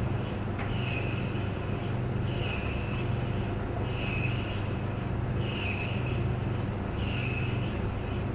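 Clothes dryer running steadily: a constant low hum with a short, higher-pitched sound recurring about every one and a half seconds as the machine turns, and faint occasional ticks.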